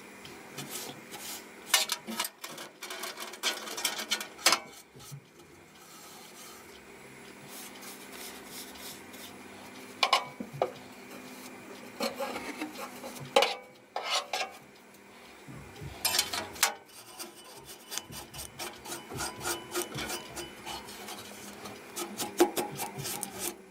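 A brush scrubbing and rubbing inside a PC tower case to clear dust, in irregular scratchy strokes with sharper scrapes now and then.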